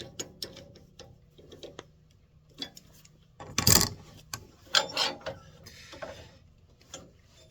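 Lathe chuck and spur drive centre being handled and fitted: scattered metallic clicks and clunks, with one loud knock about halfway through and a few more soon after.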